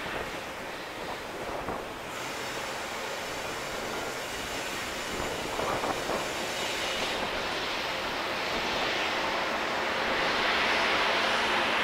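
Freight trains passing close on the rails: coal hopper wagons rolling by, then a locomotive, the sound growing louder near the end. A faint high wheel squeal comes and goes in the middle.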